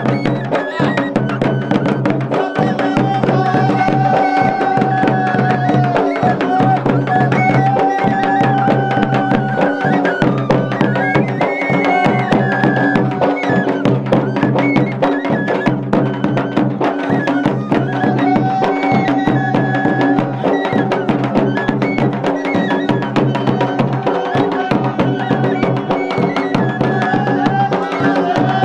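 Traditional Pangwali folk music for a dance: a rope-laced barrel drum (dhol) beaten in a steady rhythm, under a high melody of long held, bending notes over a steady low drone.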